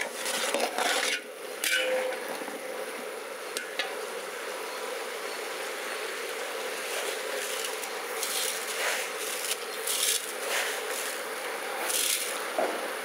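A metal stirrer scraping and clattering through chopped raw vegetables in a large aluminium pot, with sharp strokes at first and occasional scrapes later, over a steady hiss with a faint hum.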